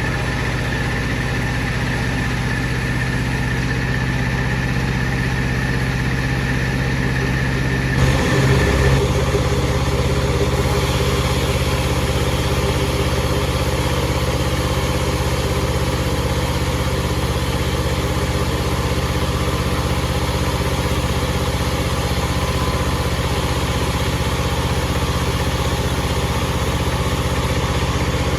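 Bandsaw machinery running with a steady low hum and a high whine. About eight seconds in there are a few knocks, the whine stops soon after, and a brighter hiss sets in and continues.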